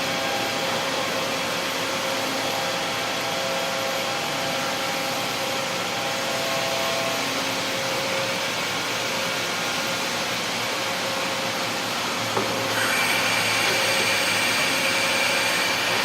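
HB150 CNC table boring machine running: a steady mechanical whine with several held tones over a broad hiss from the spindle drive and gearbox. About thirteen seconds in, the sound steps up slightly louder and higher tones join in.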